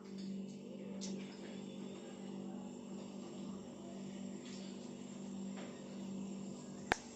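Steady low hum with a few faint taps during a meal, and one sharp click near the end.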